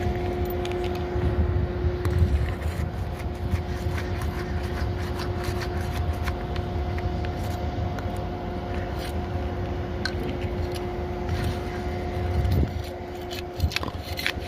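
Scattered scraping and clicking of work on old, brittle asphalt shingles as one is pried loose for removal. Under it runs a steady mechanical hum with a low rumble, which stops about twelve and a half seconds in.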